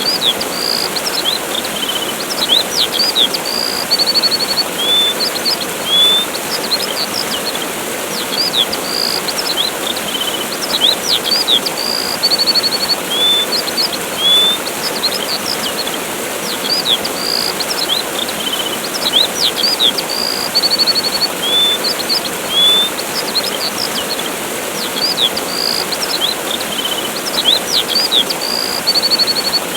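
Steady rush of a waterfall with small birds chirping over it: short rising and falling chirps and a brief buzzy trill, the same run of calls recurring about every eight or nine seconds.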